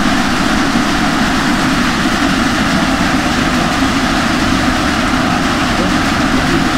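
Rain falling on a corrugated metal roof: a steady, dense hiss.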